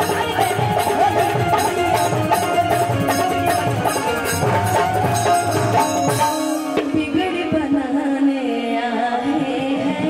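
Live Bhojpuri stage music: a woman singing with band accompaniment and drums. About six seconds in, the drums and bass drop away, leaving the voice and melodic instruments.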